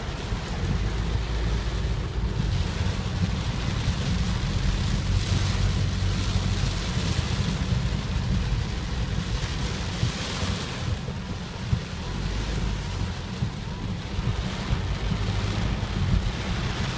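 Typhoon wind and heavy rain, the gusts swelling and easing, with wind buffeting the microphone as a continuous low rumble.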